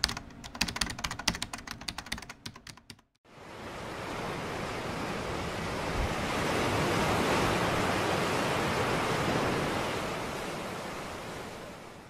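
Rapid keyboard typing clicks for about the first three seconds. Then comes the steady wash of ocean surf, which swells and then slowly fades.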